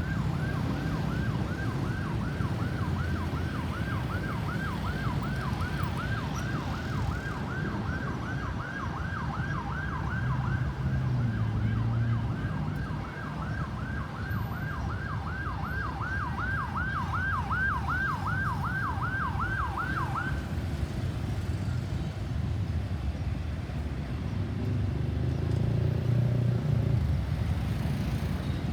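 Ambulance electronic siren in a rapid yelp, each call dropping in pitch and repeating several times a second, cutting off abruptly about twenty seconds in. Road traffic rumble runs underneath.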